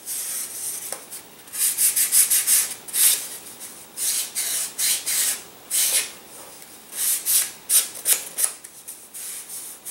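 Sanding block rubbed by hand along the edge of a balsa glider wing, in quick back-and-forth strokes. The strokes come in short runs with pauses between them.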